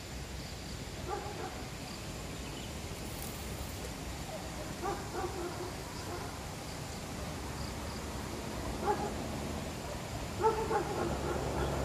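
About four short, pitched animal calls a few seconds apart, the last ones the loudest, over a steady low background noise.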